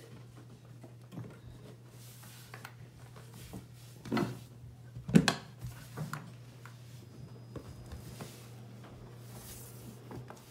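Dishwasher's lower access panel being fitted back into place by hand: a few knocks and clicks, the loudest about five seconds in, then smaller handling sounds, over a faint steady low hum.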